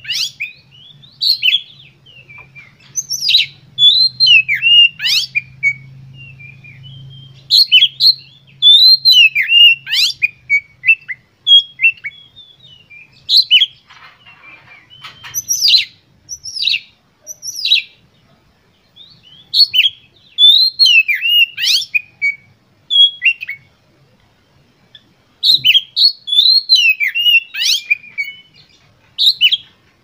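Oriental magpie-robin (kacer) singing loudly: bursts of sharp whistled notes sweeping quickly up and down, with short pauses between phrases. This is the excited 'gacor' song used as a lure to set other magpie-robins singing.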